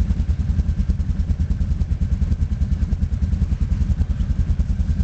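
ATV engine running steadily at low revs, with a rapid, even throb.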